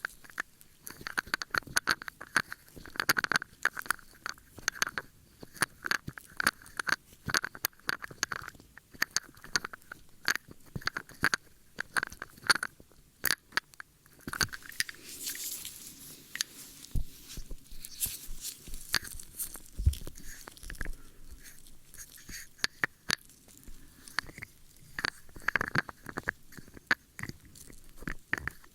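ASMR ear-cleaning sounds: tools scraping and rubbing close on a microphone, a dense run of small clicks and crackles with a short hissy rub around the middle.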